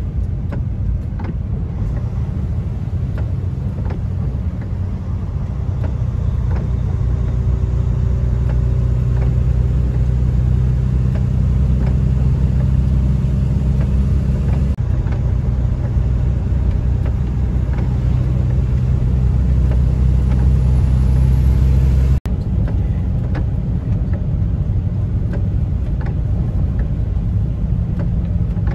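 Steady low engine drone and tyre noise heard from inside the cab of a heavy vehicle driving on wet bitumen. About two-thirds of the way through the sound drops out for an instant.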